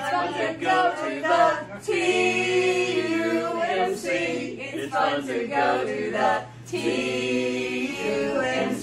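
A small group of men and women singing together without accompaniment, holding long notes in a loose chorus.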